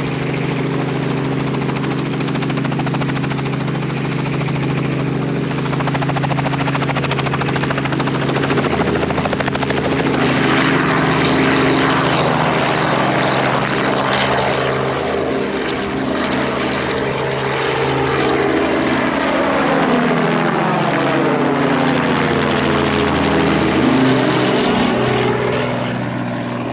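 Sightseeing helicopter flying nearby, its rotor and engine running steadily. From about ten seconds in its tone sweeps and shifts as it moves.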